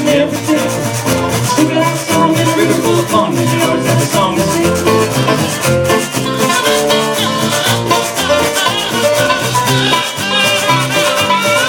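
Live jug-band music in an instrumental break: strummed acoustic guitar and banjo over upright bass, with a washboard scraping a steady rattling rhythm and a jug blown into at the microphone as a bass horn.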